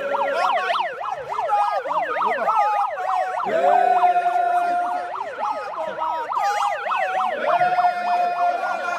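Several electronic siren tones warbling up and down at once, overlapping, with a steady held tone breaking in twice.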